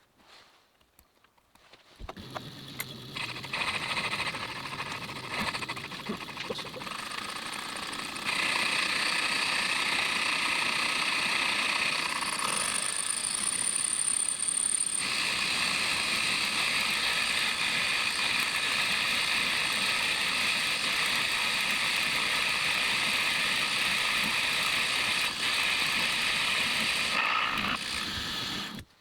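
Metal lathe running with a boring head in its spindle, boring out the inside of a tool-post holder. It starts about two seconds in, settles into a steady whine of cutting and spindle noise with a brief high squeal about twelve seconds in, and stops abruptly just before the end.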